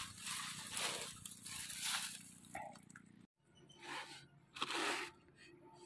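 Faint rustling and scraping of handling in brush and mesh: a few short, soft strokes, a brief drop-out about halfway through, then one more rustle.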